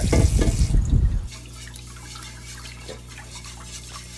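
Kitchen tap running into a pot of rice for about a second, then shut off. After that, quieter swishing and dripping water as the rice is swirled and rinsed by hand, over a faint steady hum.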